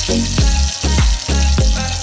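Background music with a steady beat of deep bass hits, over a continuous hiss of food frying in a pan.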